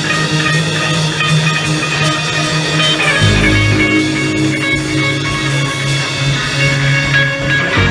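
A live band playing: guitar over sustained bass notes, with a steady light ticking from the drum kit. The bass moves to a new, lower note about three seconds in.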